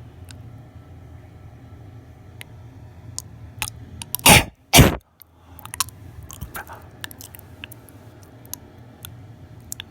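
A person coughing hard twice in quick succession, about four seconds in, to dislodge a tonsil stone. Scattered small clicks come before and after.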